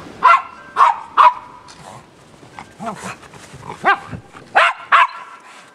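Schipperkes barking in play: short, sharp barks, three in quick succession at the start, a couple of softer ones midway, then two more near the end.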